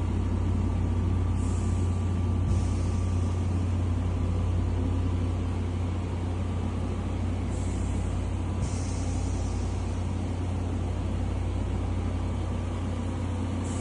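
MACY-PAN 2202 hyperbaric chamber's air and oxygen supply running during a pressurised dive, a steady low hum under rushing air. Short hisses come about every six seconds.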